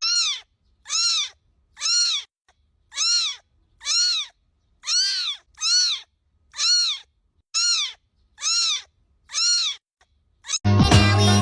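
A kitten meowing about eleven times at a steady pace, roughly once a second: each a short, high mew that rises and falls in pitch, the calls nearly alike. Music comes in near the end.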